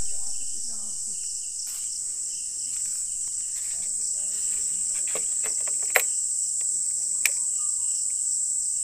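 Steady, high-pitched chorus of insects. Two sharp clicks sound about six and seven seconds in.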